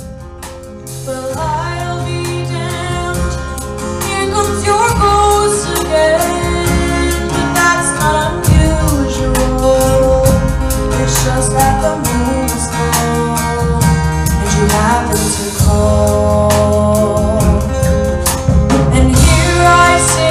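Live band performance: a female lead singer sings through a microphone over strummed acoustic guitars. Her voice comes in about a second in.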